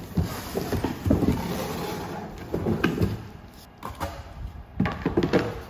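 A roll of perforated window vinyl being pulled out of its long cardboard shipping box: a rustling, scraping sound of cardboard and wrapping for the first couple of seconds, then several knocks and clatters as the roll is lifted out and handled.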